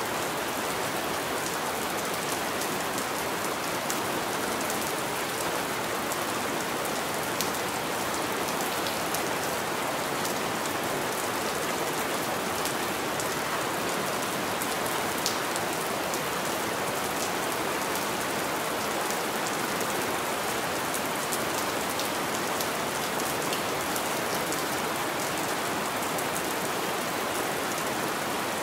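Steady rain striking window glass: an even wash of rainfall with many small, sharp clicks of single drops hitting the pane.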